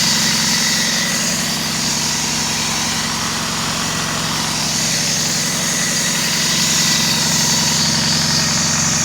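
PKSD-5.25 mobile diesel compressor station running steadily after a major overhaul: an even engine hum with a high hiss on top.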